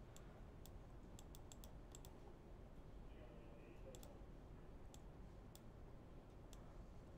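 Near silence with about a dozen faint, irregular clicks from computer controls as the weather-map software is worked.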